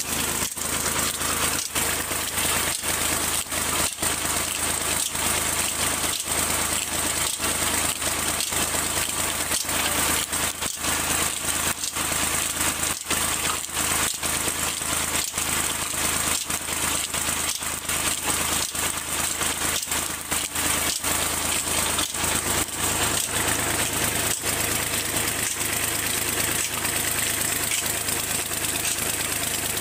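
Fiat 480 tractor's diesel engine running steadily with a fast, even clatter while it drives two tubewell pumps through its PTO, a long line shaft and a belt.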